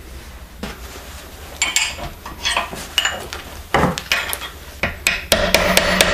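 Scattered metal clinks and knocks, then, about five seconds in, a hammer starts striking a hardened steel cold chisel into a bronze block held in a vise: fast, even blows, about five a second, each with a metallic ring.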